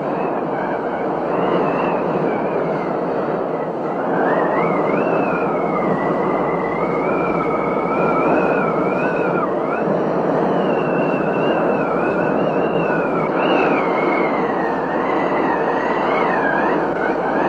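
Thunderstorm rain and wind making a steady, dense rush, with a thin high whistle wavering irregularly up and down in pitch throughout.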